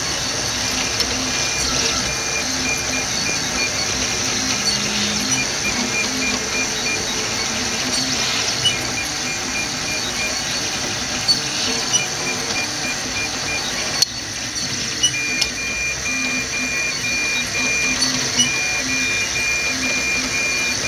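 Delta RepRap 3D printer running a print: its stepper motors whine in short stop-start tones as the hotend moves back and forth, over the steady hiss of the cooling fan, with a few light ticks.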